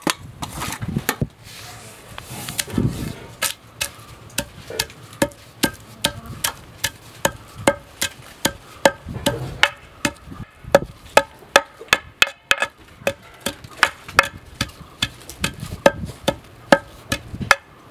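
Cumin seeds and cardamom pods tipped from a steel plate into a stone mortar. Then a long wooden pestle with a metal-capped end pounds them in the mortar, with steady strikes about two to three a second.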